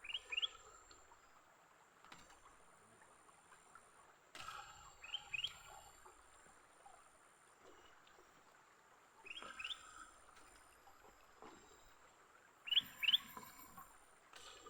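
A bird calling: a short harsh note followed by two quick rising chirps, repeated four times about every four seconds.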